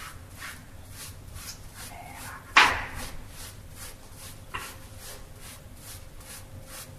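Soapy, lathered hands rubbing together in a surgical hand scrub, a wet swishing stroke about twice a second, with one louder sudden wet sound about two and a half seconds in. A faint steady hum runs underneath.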